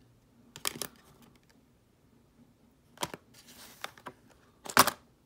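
Trading cards being handled and sorted by hand: three clusters of sharp clicks and clacks, the loudest near the end, with a brief rustle just before it.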